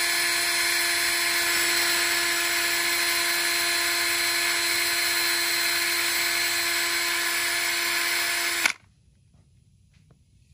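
Electric drill running at a steady speed, spinning a toothpick inside a carburetor's float needle seat to polish it. The motor's whine holds one pitch, then cuts off suddenly near the end.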